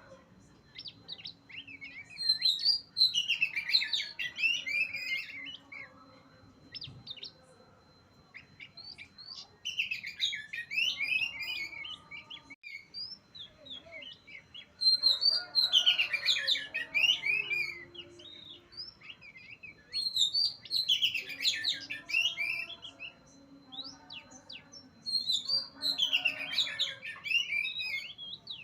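Oriental magpie-robin (kacer) in full song: bursts of rapid, varied whistles and chirps, about five phrases, one every five or six seconds.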